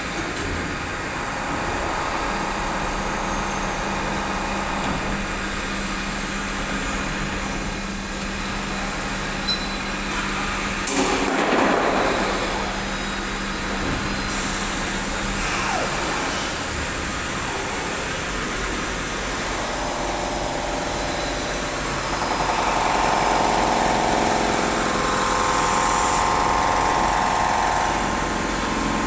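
CNC machine with an automatic loader running through its machining cycle: a steady mechanical hum with a low tone over the first half, a short burst of hiss about eleven seconds in, a few rising and falling glides, then a steady higher whine through the last third.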